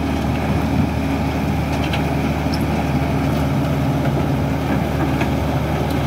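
Komatsu D65 crawler bulldozer's diesel engine running steadily under load as the blade shoves boulders and mud, with a few faint clicks over the engine sound.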